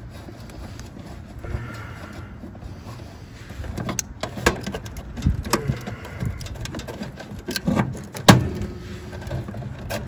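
Quarter-inch nut driver clicking, tapping and scraping on screws and the sheet-metal panel while an ignition control module is unscrewed. It is a run of sharp taps from about four seconds in, the loudest near the end, over a low steady hum.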